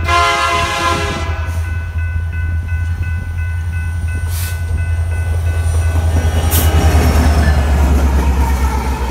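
Canadian Pacific SD70ACU diesel locomotive's horn chord ending about a second in, then the deep rumble of its EMD two-stroke diesel and the trailing locomotives. The rumble grows louder as the light-engine consist passes close, and is loudest near the end.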